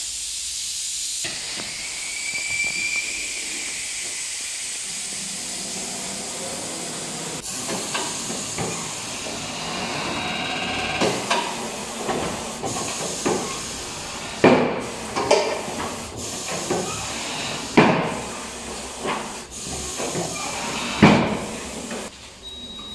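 Tyre-shop work: a steady hiss for several seconds, then a run of metal clanks and knocks as wheels are handled at a wheel-balancing machine. The loudest knocks come a little past halfway and near the end.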